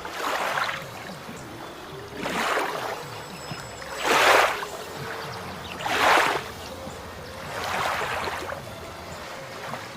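Water washing in and out in five regular swells, one about every two seconds, each rising and falling away.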